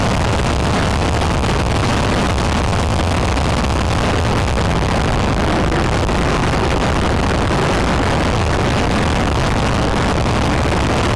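Steady road, tyre and engine noise inside a police patrol SUV driving at highway speed, picked up by its dash camera's microphone.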